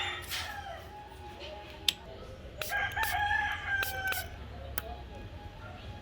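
A rooster crowing once, a long held call of about a second and a half near the middle, with a few sharp clicks and knocks around it.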